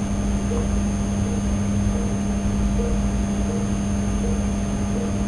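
Steady electrical hum with a low rumble and hiss, unchanging throughout.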